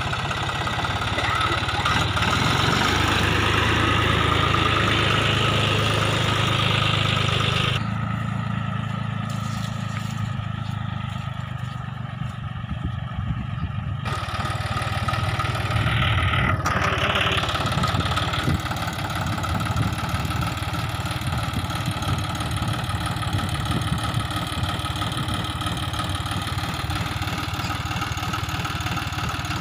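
John Deere 5310 tractor's three-cylinder diesel engine running steadily as it pulls a heavily loaded trailer. The sound drops somewhat from about eight seconds in for several seconds, then comes back up.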